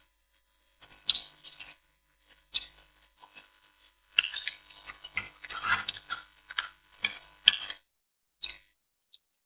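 Close-miked eating sounds of someone chewing spicy noodles: irregular wet mouth clicks, busiest in a dense run through the middle.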